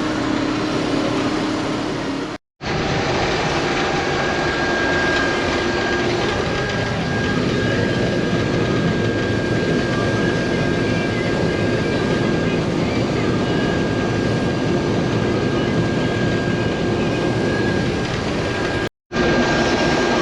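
Old International Harvester Axial-Flow combine running steadily under harvest load, a dense machine drone with a steady high whine over it. The sound cuts out to silence for an instant twice.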